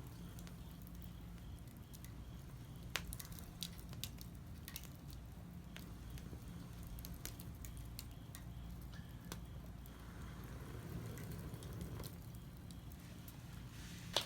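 Wood fire in a small fire pit crackling, with scattered sharp pops and ticks over a low steady rumble.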